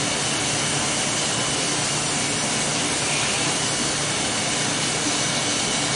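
Steady whir of a small electric motor pushing air, holding the same level throughout.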